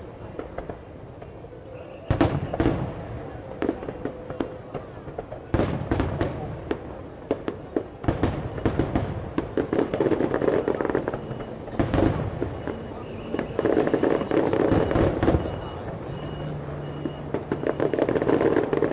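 Aerial firework shells bursting: a sharp boom every few seconds, with long stretches of dense crackling from crackle-effect stars between them.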